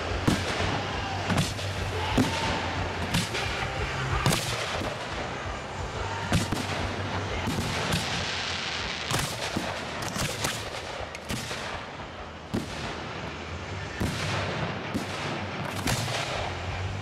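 Display fireworks shells going off at close range: an irregular string of sharp bangs, about one a second, each trailing off briefly, over a steady low hum.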